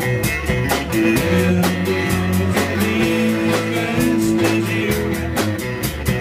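Live blues-rock band playing: electric guitar over a drum kit's steady beat, with sustained notes held over it.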